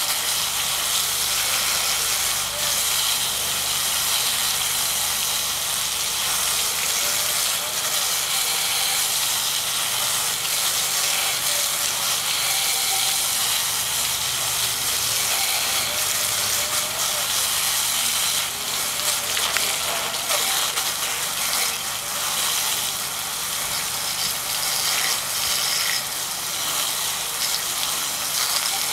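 Steady hiss and splash of water jets spraying onto a 120 mm computer fan during an IP55 water-jet test.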